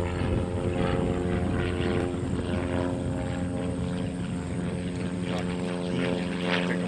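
Propeller-driven light airplane's piston engine flying overhead, a steady drone at an even pitch.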